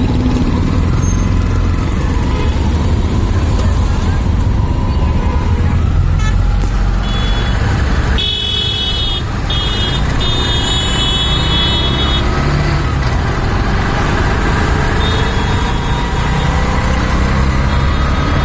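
Steady low rumble of a CNG auto rickshaw's engine and surrounding road traffic, heard while riding in the three-wheeler. Midway, vehicle horns honk in several short blasts.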